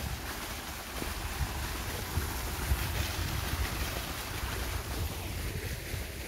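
Small waterfall splashing down from an opening in an old wall and a little stream running over stones, a steady rushing hiss that thins near the end, with wind buffeting the microphone.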